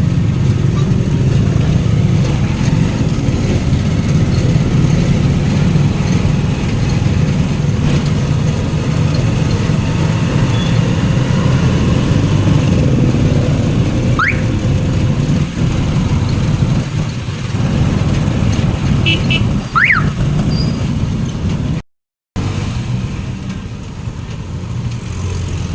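Steady low rumble of a motor vehicle on the move, with two short rising whistle-like chirps about 14 and 20 seconds in.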